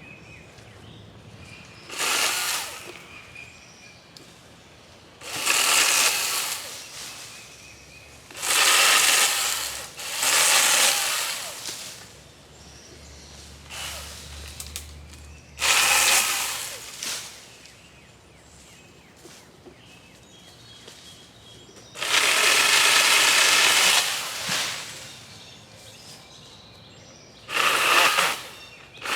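Battery-powered pole saw running in several short bursts, most about a second long and the longest about two seconds near the end, as its chain cuts through tree limbs.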